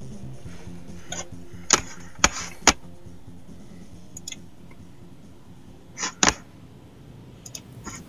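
Background music fading out, then a series of sharp clicks and clacks from the car keys being handled: three loud ones about two seconds in, two more about six seconds in, and a few light ticks near the end.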